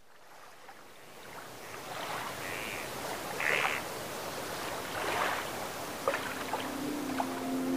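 A lakeshore ambience fading in: a steady wash of water, with a few short bird calls. Sustained music notes come in near the end.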